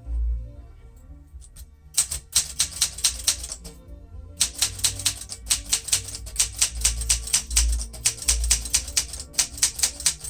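1968 Olympia SM9 manual portable typewriter being typed on: quick runs of key strikes, a burst of under two seconds, a brief pause, then a longer run of about six seconds. Background music with low notes plays underneath.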